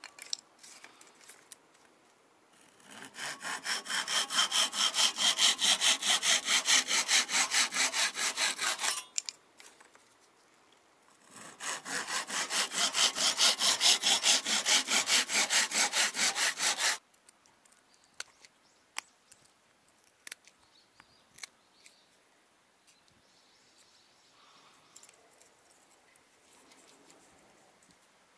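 A hand saw cuts through a thin plywood strip in rapid, even back-and-forth strokes: two cuts of about six seconds each, the second starting about two seconds after the first ends. After that there are only scattered light clicks and taps as the cut pieces are handled.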